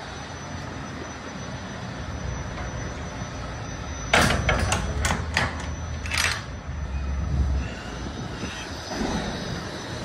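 A quick run of about six sharp clanks and knocks, starting about four seconds in, over a steady low rumble.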